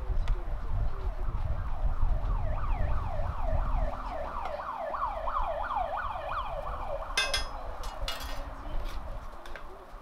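A siren in a fast yelp, rapid falling sweeps repeating about three times a second, comes in about two seconds in and fades out after about seven seconds, over a low rumble that drops away near the halfway point. A couple of short scrapes of a spatula on the steel griddle come near the end.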